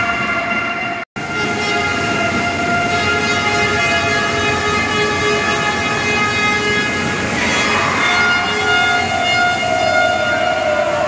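Handheld air horns sounding long, steady blasts over crowd noise in a sports hall, with a second horn at a lower pitch joining midway and another pitch taking over near the end. The sound cuts out for an instant about a second in.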